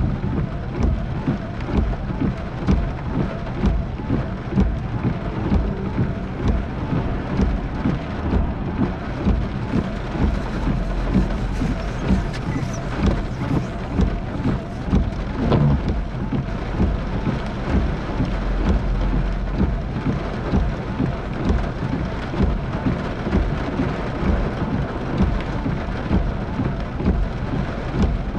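Heavy rain pelting a car's windshield and roof, heard from inside the car as a dense, irregular patter of drops, with a low rumble of thunder swelling through the middle.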